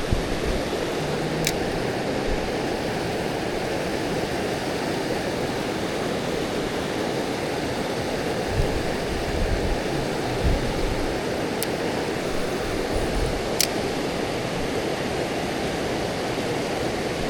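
Mountain stream water rushing steadily, with a few brief sharp ticks.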